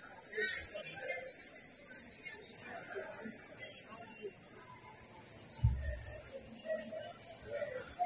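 Cicadas giving a continuous, shrill high-pitched buzz that holds steady without a break. A brief low thump sounds just before six seconds in.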